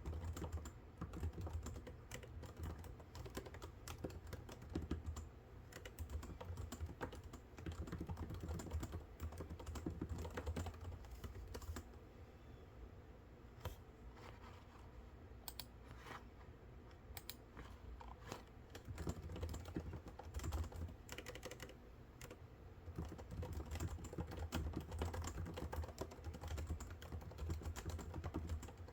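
Typing on a computer keyboard: a steady run of keystrokes that thins to sparser, quieter taps for several seconds in the middle before picking up again.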